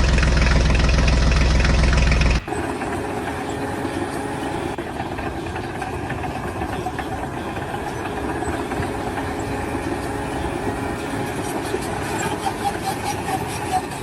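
An engine running steadily, cutting abruptly about two and a half seconds in to a different, quieter and rougher mechanical running noise.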